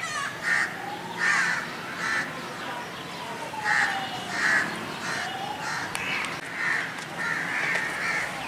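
Crows cawing repeatedly in short, harsh calls, roughly one a second. Underneath, a faint tone slowly rises and falls.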